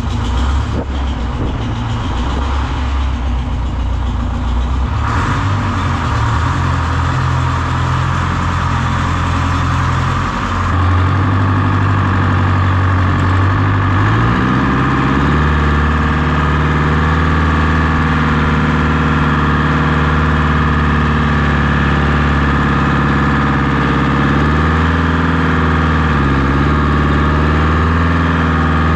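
Diesel tractor engines running. The first few seconds are a diesel idling, then the Oliver 1950's Detroit Diesel 4-53 two-stroke runs under way, louder from about a third of the way in, its pitch rising as it speeds up and dipping briefly near the end.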